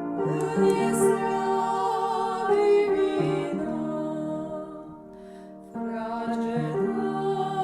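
A slow, gentle Romanian Christmas carol (colind): voices with keyboard accompaniment holding long notes. The music drops quieter for about a second around five seconds in, then picks up again.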